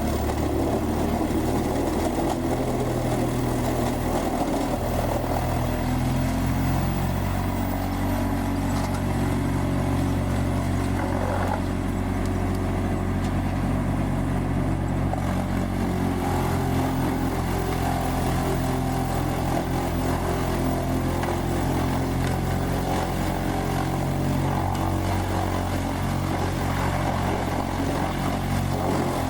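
Large engine of a whole tree chipper running steadily, a low drone at an even level.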